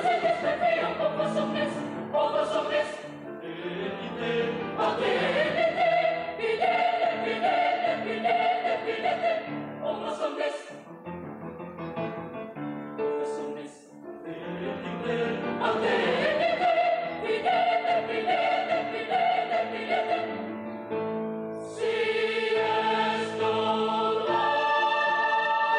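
Mixed youth choir singing in parts. A quieter passage comes in the middle, and the choir swells into long held chords near the end.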